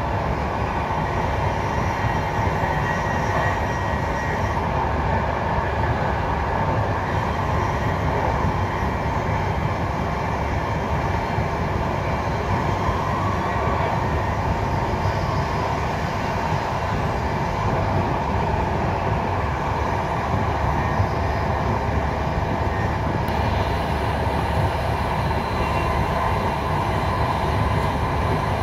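Intercity passenger train running at speed, heard from inside the train: a steady, even rumble of wheels on the rails.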